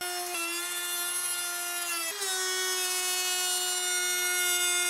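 AEG 18V cordless trim router running at speed, its bearing-guided bit cutting along the edge of a wooden panel: a steady high-pitched whine. The pitch shifts slightly and the sound gets a little louder about two seconds in.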